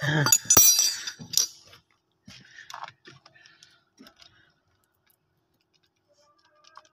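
Metallic clinking and ticking, dense and loudest in the first second and a half, then a few scattered light ticks before it falls quiet.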